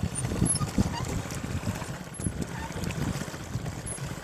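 Low noise of a boat under way: its propeller churning and water moving along the hull, with wind buffeting the microphone.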